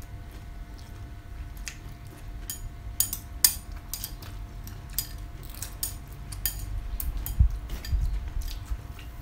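Close-miked eating sounds: chopsticks clicking against bowls and crunchy chewing of fresh raw vegetables with rice noodles, in scattered sharp clicks that come thicker after the first couple of seconds.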